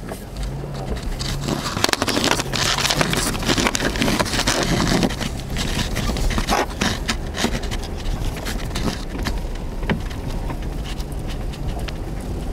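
A fallen tree branch scraping and cracking against the underside of a Nissan Xterra as the SUV drives over it. There are many sharp snaps and scrapes, thickest from about two to five seconds in, over the low rumble of the vehicle.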